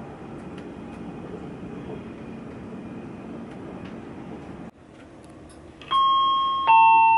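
Intercity train carriage running, a steady rumble from the upper deck, which cuts off suddenly about four and a half seconds in. Then a loud two-note descending chime, ding-dong, each note ringing and fading, like the chime a train's public-address system sounds before an announcement.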